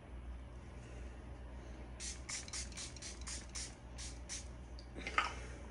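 Fine-mist pump spray bottle being pumped over the face: a quick run of about ten short hissing puffs, a few a second, starting about two seconds in. A single brief louder sound follows near the end.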